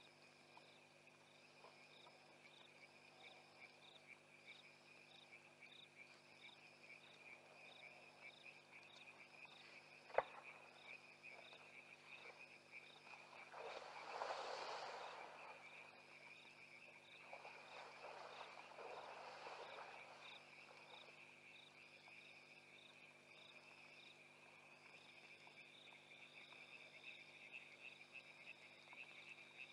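Faint night chorus of crickets trilling steadily, with a higher pulsed call repeating about once a second. A sharp click comes about a third of the way in, followed by two soft rushing swells of noise around the middle.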